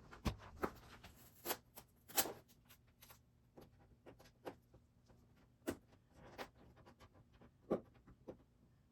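Cardboard Lego set box being opened by hand: faint, irregular clicks, scrapes and rustles of the cardboard and the contents being handled, with a few sharper snaps.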